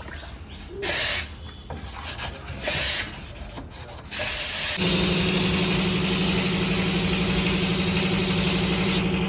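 Compressed-air paint spray gun hissing in two short bursts, then spraying continuously. A steady motor hum joins the hiss about halfway through.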